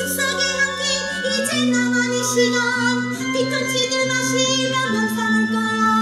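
A woman singing a musical-theatre number over a band accompaniment, holding long notes.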